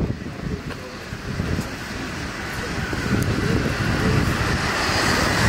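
Street ambience: wind buffeting the microphone over road traffic noise, which grows louder over the last few seconds.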